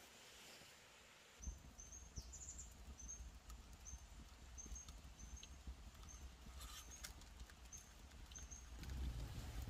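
Faint forest ambience: short, high chirps repeat irregularly about once a second, with a few light ticks. A low rumble starts about a second and a half in and grows stronger near the end.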